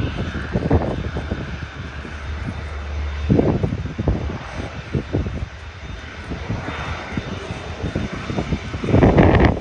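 Jet engines of a wide-body airliner departing under takeoff power: an uneven, rumbling roar that swells and fades, loudest near the end.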